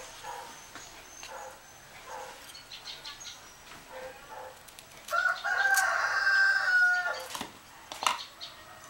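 A rooster crows once, a single long call about five seconds in that lasts some two seconds and drops at the end. Around it come a few light clicks and knocks.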